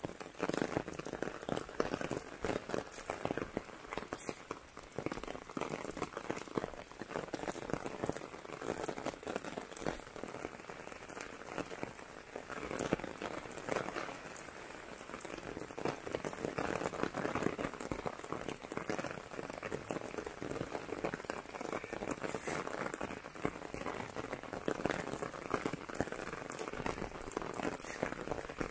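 Steady rain, with a dense run of close drop taps on an umbrella held overhead.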